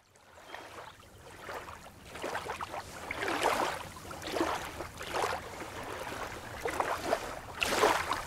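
Small waves lapping on a sandy lake shore, each wash swelling and falling about once a second, fading in over the first couple of seconds.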